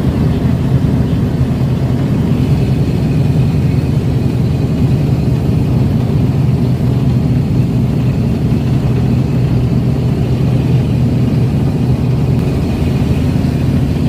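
Fishing boat's engine running steadily under way: a loud, even, low drone, with the churning wake rushing behind the stern.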